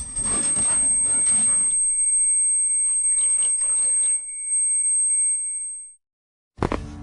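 A steady, piercing high-pitched tone, a drama sound effect like ear-ringing or an alarm, held for about six seconds over fading background noise and then fading out into a moment of silence. Music with low beats comes back just before the end.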